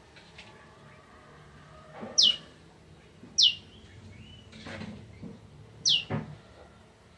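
A prenjak (prinia) giving three loud, sharp calls, each a quick downward-sweeping note, spaced about one to two and a half seconds apart.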